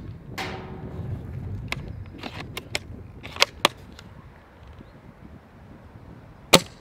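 Novritsch SSG96 spring-powered airsoft bolt-action sniper rifle being cycled, a drawn-out rasp followed by several light clicks, then firing one sharp shot near the end.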